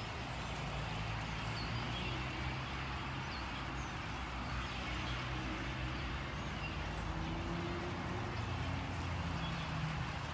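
A huge murmurating flock of birds calling together in a dense, continuous chatter of many small chirps. A steady low engine hum runs underneath.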